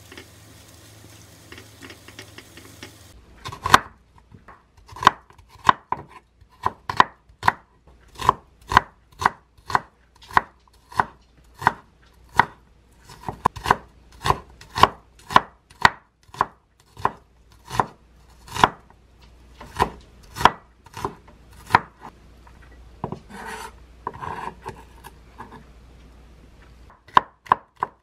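A kitchen knife chopping an onion on a wooden cutting board, in even strokes just under two a second, after a few seconds of frying sizzle from a takoyaki pan at the start. Near the end comes a brief rustle and then quicker chops as a green chilli is cut.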